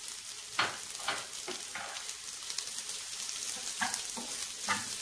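Oil sizzling steadily in a frying pan of onion and spice tempering, as boiled potato is crumbled in by hand and stirred. Several short, louder sounds break through the sizzle, two or three in quick succession in the first two seconds and a few more near the end.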